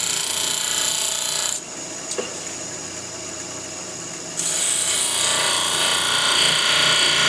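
Bench grinder wheel grinding a mild steel lathe tool blank, a loud rasping hiss while the steel is pressed to the wheel as the side rake is cut. Contact breaks about one and a half seconds in, leaving a quieter stretch, and the grinding starts again a little over four seconds in.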